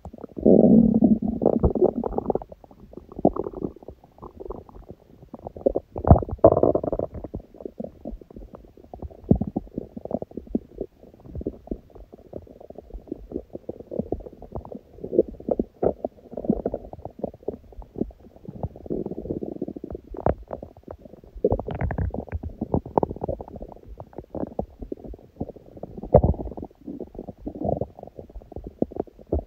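Human stomach growling from hunger: low rumbling with a constant run of small popping, rattling gurgles, swelling to louder gurgles near the start, about six seconds in, and a little past twenty seconds.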